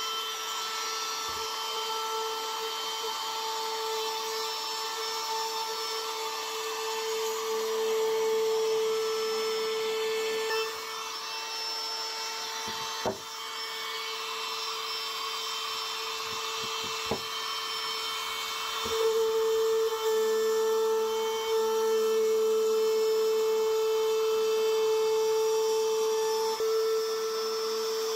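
Handheld woodworking power tool running with a steady high whine as it works wood, its load shifting a few times. Two sharp knocks come about halfway through.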